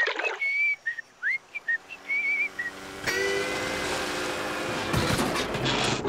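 Cartoon whistling: a short, lazy tune of separate notes, some sliding up in pitch. About three seconds in, the steady noisy drone of an airboat's engine and big fan comes in and runs on.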